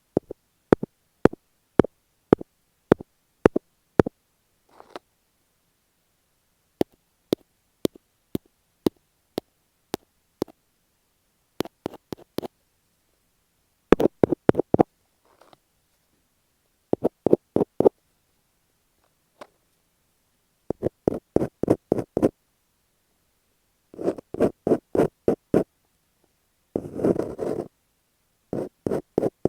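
Fingertips tapping on masking tape stuck over an earphone microphone, close and crisp with silence between: single taps about twice a second at first, then quick runs of rapid taps in clusters. Near the end, a short burst of scratching on the tape.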